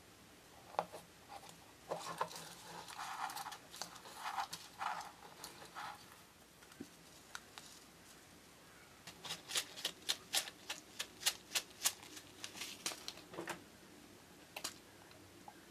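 A small plastic zip bag crinkles as it is handled. Then comes a quick run of small, sharp clicks as tiny pebbles and metal tweezers tap against each other.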